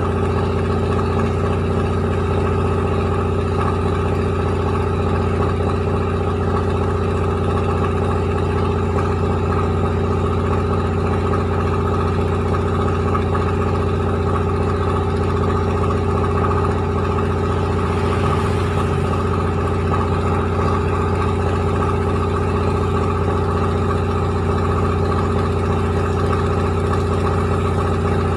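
Rice milling machine running steadily, a constant mechanical drone that holds the same pitch and pace throughout.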